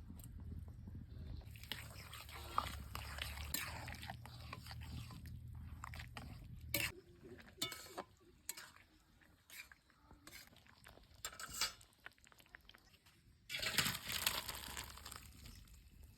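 Kitchen food-preparation sounds: crackling and scraping with clicks and knocks of utensils, over a low hum that stops about seven seconds in, then a louder rustling burst near the end.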